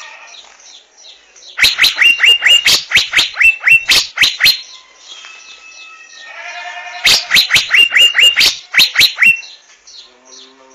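Asian fairy-bluebird calling: two runs of rapid, sharp, upward-flicked notes, about five a second, each lasting two to three seconds. Between them comes a short wavering, buzzy call.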